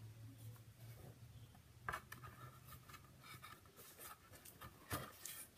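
Faint rustling and scraping of paper and a wooden picture frame being handled on a table, with two light knocks, about two seconds in and near the end.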